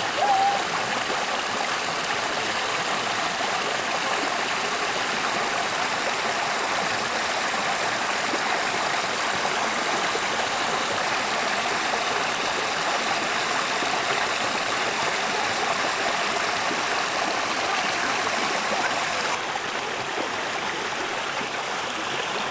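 Steady rushing of a stream's running water. A brief high chirp sounds about half a second in.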